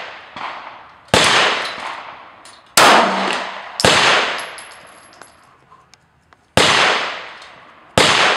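Five loud shots from a Glock 19 9mm pistol, fired a second or more apart in slow aimed fire, each with a long ringing decay. A fainter shot comes shortly after the start.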